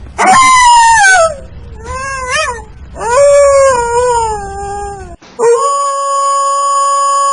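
Loud, long howling cries: the first falls in pitch, a few shorter wavering ones follow, and the last is held steady for about three seconds.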